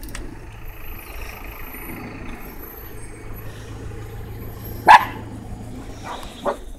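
Dachshund puppies at play, one giving a short, loud bark about five seconds in and a fainter one near the end, over steady background noise.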